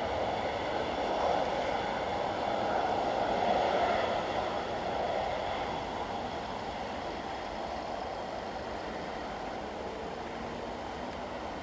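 Jet engines of an Airbus A321 taxiing: a steady rushing hum with a faint high whine over it, easing slightly after about four seconds as the airliner turns away.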